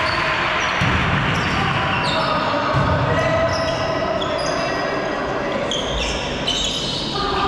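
Volleyball players' shoes squeaking repeatedly on an indoor court floor during a rally, many short high squeaks, with a few dull thuds from ball contacts and footfalls.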